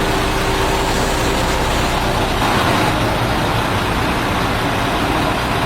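Truck engine running steadily, with a loud, even rushing noise over its low rumble.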